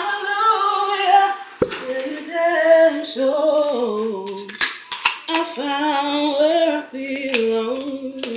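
A woman singing to herself without accompaniment, holding and sliding between notes, with the lyrics only half known. A few sharp knocks come in between, about one and a half, four and a half and five seconds in.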